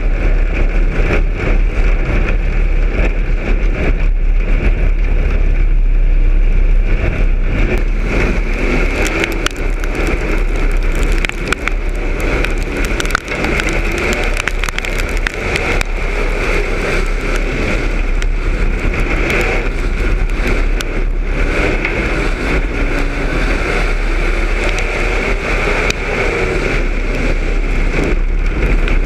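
A street stock race car's engine running hard at racing speed, heard from inside the cockpit, loud and steady with a deep rumble, many sharp clicks and rattles over it, and the sound dipping briefly a couple of times midway.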